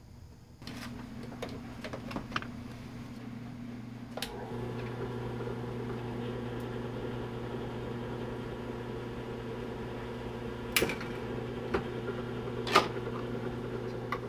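Benchtop drill press motor switched on about half a second in and running with a steady hum, drilling holes through a plastic project-box lid held on a wooden block. The hum grows fuller about four seconds in, and two sharp clicks come near the end.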